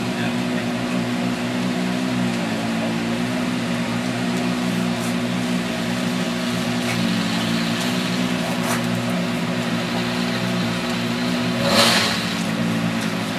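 Citroën C4 WRC rally car's turbocharged four-cylinder engine idling with a steady hum, its pitch dipping slightly a couple of times. A short loud hiss cuts in near the end.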